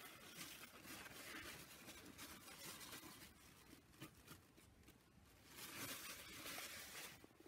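Faint rustling and crinkling of kitchen paper towels being unfolded and shaken out over a clay pot, in two spells with a quieter gap between them.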